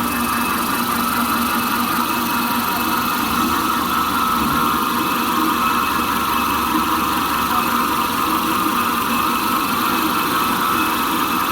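Jumbo-roll toilet paper slitting machine running steadily: a continuous mechanical hum with a steady whine, unchanging throughout.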